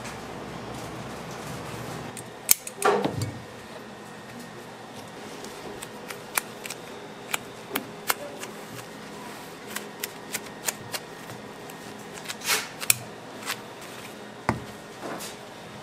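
Gloved hands pressing and wrapping soft slabs of warm candy together on a work table: scattered sharp clicks and light taps, with two short squeaks that slide down in pitch, one about three seconds in and one near the end. A steady low hum runs underneath.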